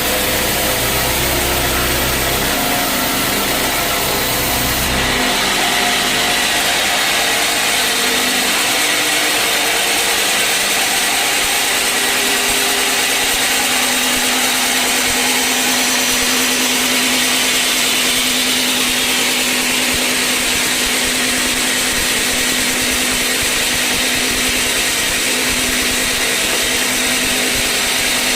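Sawmill saw running steadily through a large mahogany log, a loud continuous hissing whine. A low rumble underneath drops away about five seconds in, and a steady low hum comes in about halfway.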